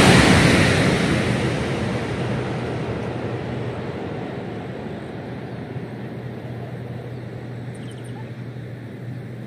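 CRRC high-speed electric train rushing away after passing at speed, its wind and rail noise fading steadily over several seconds. A low steady hum continues underneath.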